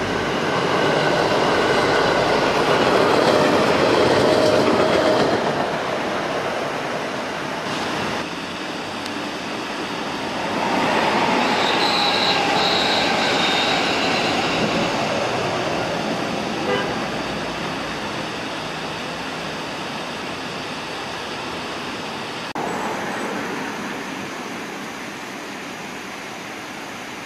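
JR West electric multiple-unit trains passing one after another: first a 221 series, then a 223 series, their wheels on the rails swelling loud and fading away. Two short high tones sound during the second train's passage.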